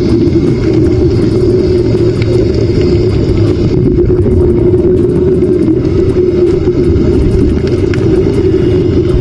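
Boat engine running steadily: a loud, continuous low rumble with a droning note in it.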